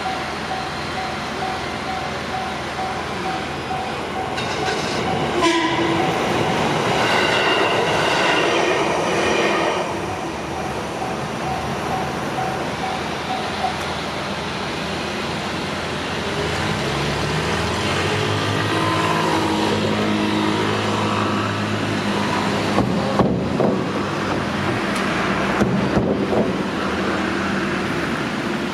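Japanese level-crossing alarm bell ringing in a steady repeating ding, with a train's horn sounding for several seconds about five seconds in. The bell stops about fourteen seconds in, and an electric train runs through with a rising motor hum and a few sharp wheel clacks near the end.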